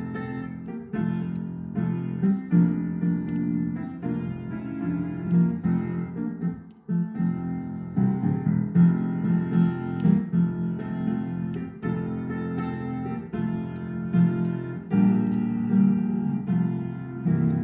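Piano music: a steady run of notes and chords, with a short break about seven seconds in.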